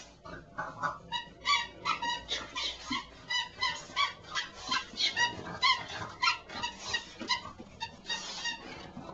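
A dog's squeaky toy squeaking over and over as a French bulldog chews on it: a rapid, uneven string of short high squeaks, about two a second.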